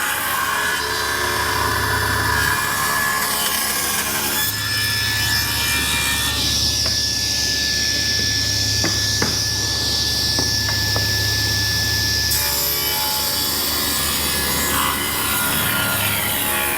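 Delta 14-inch bandsaw resawing a thick hardwood board against the fence, the blade cutting steadily through the wood over the motor's hum. A high steady whine joins for several seconds in the middle of the cut, with a few light ticks.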